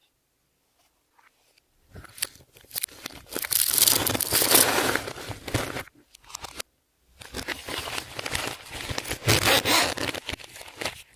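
Hands squishing and stretching clear slime mixed with makeup and glitter, a wet crackling full of small pops and clicks. It comes in two bouts, the first starting about two seconds in and the second after a short pause about six seconds in.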